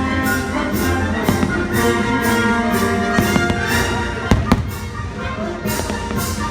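Orchestral music with brass and strings from the fireworks show soundtrack, with a few fireworks bursts cracking over it, the loudest a pair about four and a half seconds in.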